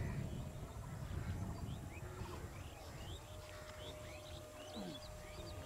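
Small birds chirping in many short rising calls over a low rumble. A faint steady tone comes in about three seconds in.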